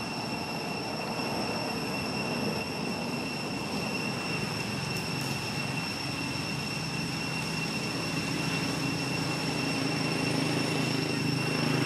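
Steady outdoor background noise with a constant high-pitched whine. A low hum builds up slightly over the last few seconds.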